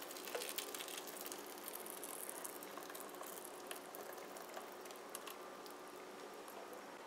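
Faint crackling and bubbling of hot butter-and-sugar caramel glaze as it is poured from a frying pan, with scattered small clicks. It eases off slightly toward the end.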